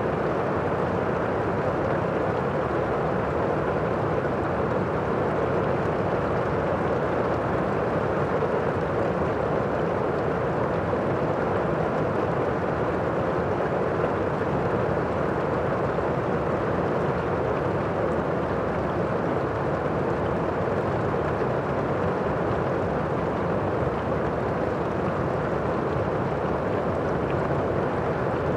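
Steady, unbroken rain, heard muffled, with a low, dull hiss and little high-pitched patter.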